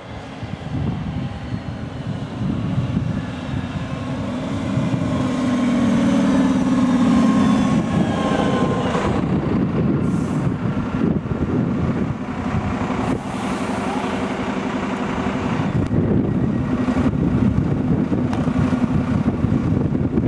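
Stadler RegioShuttle RS1 diesel railcar pulling into a station and stopping: its engine and wheels grow louder as it approaches, with a whine falling in pitch as it slows. Two short hisses come midway, then the diesel engine runs steadily at standstill.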